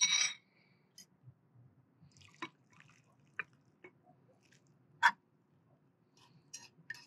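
Metal fork clinking and scraping against a small cooking pot and a ceramic bowl as ramen noodles and broth are pushed out of the pot into the bowl. A short noisy scrape opens the sound, followed by scattered clinks, the sharpest about five seconds in.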